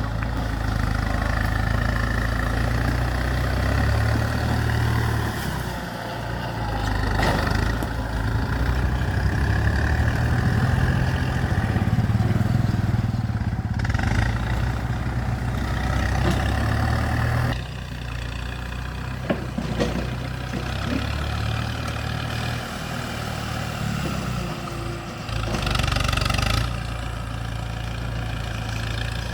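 Kubota MU5702 tractor's diesel engine running steadily under work, its sound dropping noticeably about two-thirds of the way through.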